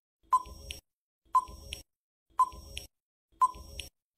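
Quiz countdown timer sound effect: a short electronic beep once a second, four times, each followed by a softer tick.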